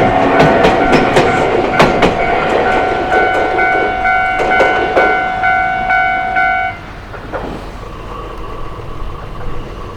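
Iyotetsu Takahama Line electric train passing over a level crossing, its wheels clacking over the rail joints. Steady ringing tones sound over it and cut off abruptly about seven seconds in, after which it is much quieter.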